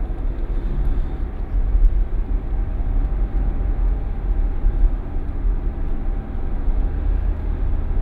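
Steady noise of a car driving at speed, heard from inside the cabin: a deep engine and road rumble with tyre and wind noise over it.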